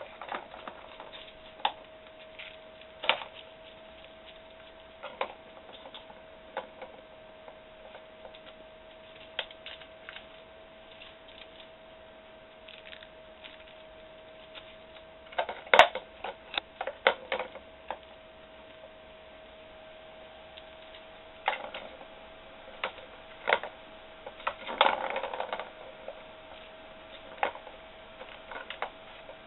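Irregular clicks and rattles of a plastic ball-track cat toy as kittens bat at it, with busier bursts of clattering about halfway through and again near the end. A faint steady whine sits underneath.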